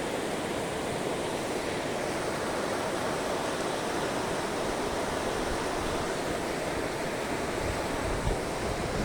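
Heavy rain pouring down, a steady dense hiss, with a little low wind rumble on the microphone near the end.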